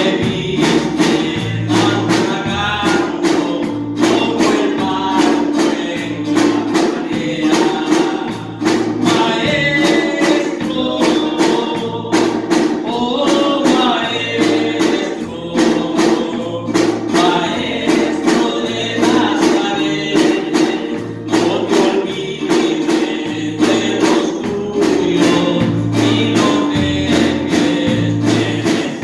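Live gospel worship music: a male lead singer with acoustic guitar, a second guitar and keyboard, over a pulsing bass line and percussion keeping a steady beat.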